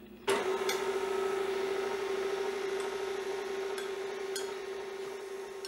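KitchenAid Classic stand mixer switched on about a third of a second in, its motor then running with a steady hum as the paddle beats chocolate buttercream. A few light clicks sound over it.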